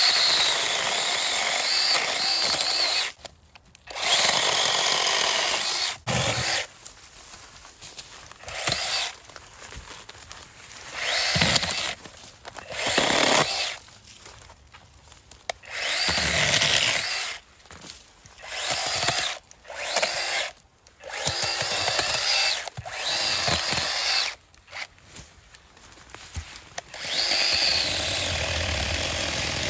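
NAOKEV 6-inch 21-volt battery mini chainsaw running in about ten bursts of one to three seconds, with short pauses between them, as it cuts through small branches and brush.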